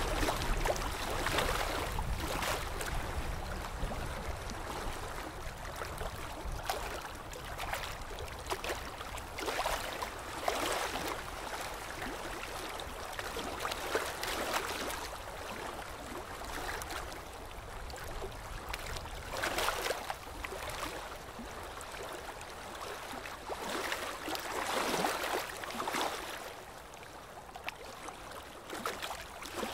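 Water sloshing and splashing in irregular swells every second or two, over a low rumble that fades during the first half.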